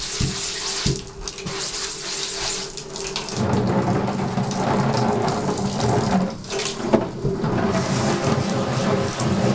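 Bathtub tap running, its stream splashing onto a screen-printing screen held under it to wash out uncured emulsion. The splashing grows fuller and deeper about three and a half seconds in.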